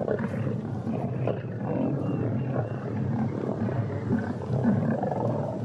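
Several lions growling and snarling continuously as they squabble over a carcass while feeding.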